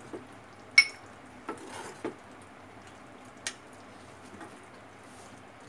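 Metal ladle clinking and scraping against a steel pan and a serving bowl as curry is ladled out. One sharp ringing clink about a second in, then a few softer knocks.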